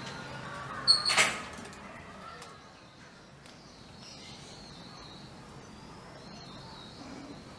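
A sharp clank about a second in, two hits close together with a brief metallic ring, then faint bird chirping in the background.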